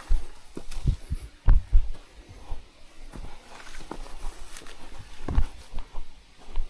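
A hiker's footsteps on a trail: irregular dull thumps at an uneven walking pace, the loudest about one and a half seconds in and again near the five-and-a-half-second mark, with faint rustling between them.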